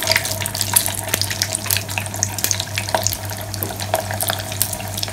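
Breadcrumb-coated chicken pieces crackling and sizzling in hot refined oil during their second fry, a dense steady patter of crackles. The crisp crackle is the sign that the coating has turned crispy.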